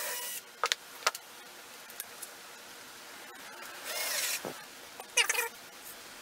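Cordless drill-driver running briefly as it drives a screw to tack the panels together, stopping about half a second in. Then scattered light clicks, a short scrape and rattles as the boards and a metal tape measure are handled.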